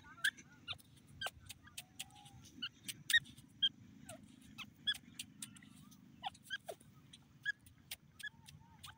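Grey francolin giving soft, short chirping notes and sharp little clicks, irregular, about two a second, some gliding briefly in pitch.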